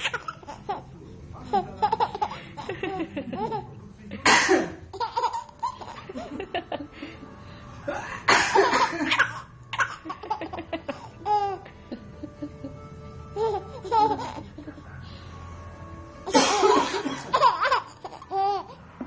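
A baby's giggles and belly laughs set off by a man's coughs. The loud coughs come near the start, at about four and eight seconds, and in a cluster near the end, with the baby laughing in between.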